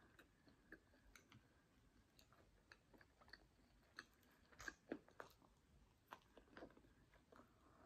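Faint chewing of jerk chicken: soft, irregular mouth clicks, a few slightly louder ones around the middle.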